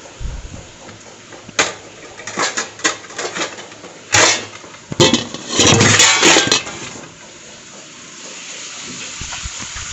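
Metal kitchenware being handled: a run of clinks, knocks and clattering as an aluminium plate and pans are picked up and moved, loudest about five to six and a half seconds in. A quieter steady hiss follows in the last few seconds.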